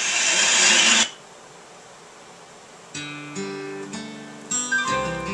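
Music from a USB thumb drive playing through a rebuilt 1966 Chevrolet C10 radio, being skipped with its push button. A loud track cuts off abruptly about a second in, and after about two seconds of quiet a new song starts with plucked guitar notes.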